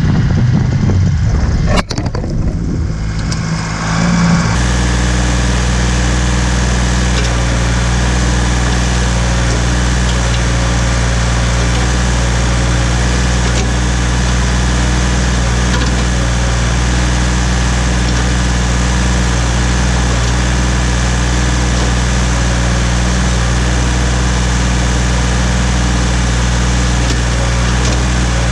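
Ford 1710 tractor's three-cylinder diesel engine idling steadily. It is preceded by a few seconds of uneven noise with a sharp click about two seconds in.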